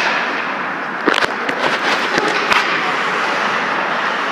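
Ice hockey play in an arena: a steady wash of rink noise, with a cluster of sharp knocks from sticks and puck between about one and three seconds in.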